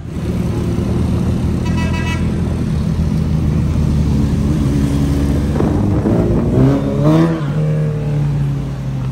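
Motorcycle engines, among them a Suzuki Hayabusa's inline-four, running through city traffic with a steady drone. A brief vehicle horn toot sounds about two seconds in, and engine revs rise and fall between about six and seven seconds.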